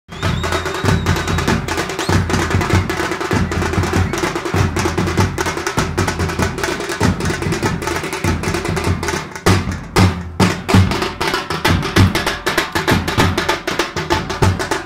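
Several large drums beaten with sticks in a fast, dense rhythm. The drumming drops out briefly about nine and a half seconds in, then picks up again.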